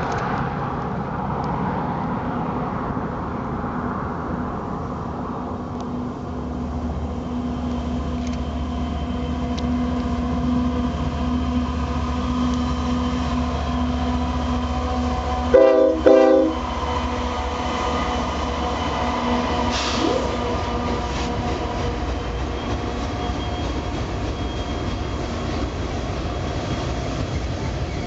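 A Union Pacific diesel locomotive hauling a loaded rock train of hopper cars passes, its engine running with a steady low drone. About halfway through it sounds its horn in two short blasts, and the hopper cars keep rolling by on the rails.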